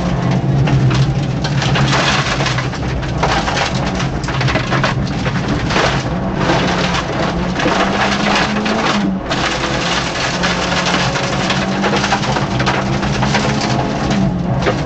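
Peugeot 205 1.9-litre four-cylinder rally car engine held at high revs under load, heard inside the cabin, with a dense rattle of many small knocks and a constant hiss of tyre and underbody noise over it. The engine note dips briefly about nine seconds in.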